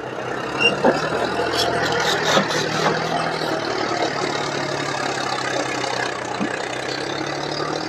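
John Deere 5050 D tractor's diesel engine running steadily under heavy load as it pulls an overloaded sand trolley up a climb, with a few knocks in the first few seconds.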